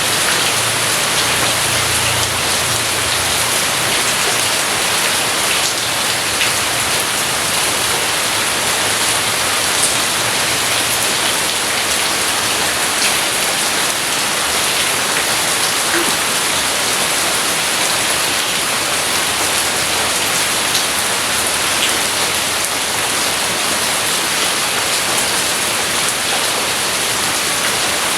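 Steady heavy rain, a dense even hiss with scattered individual drop ticks. A faint low rumble sits under it for roughly the first ten seconds, then fades.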